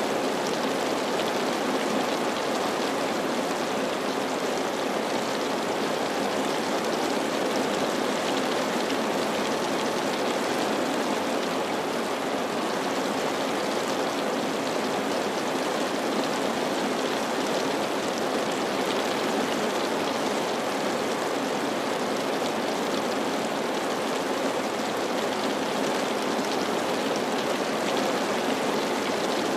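Steady rain falling, an even wash of noise that does not change.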